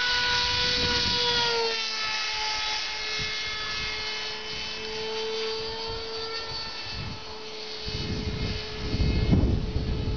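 Radio-controlled model airplane's engine running in flight, a steady high-pitched whine whose pitch drops slightly about a second and a half in. Wind buffets the microphone in the last couple of seconds.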